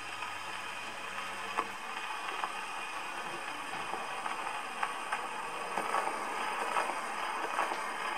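Surface noise of a 78 rpm shellac record played on an HMV Model 101 portable gramophone after the song has ended: a steady hiss with scattered crackles and clicks, cutting off suddenly at the very end.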